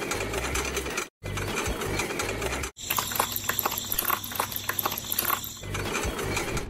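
A small mechanism whirring and clicking rapidly, cut off abruptly twice in the first three seconds. From about three seconds in it becomes a dense run of sharp clicks, then settles back to a steady whir.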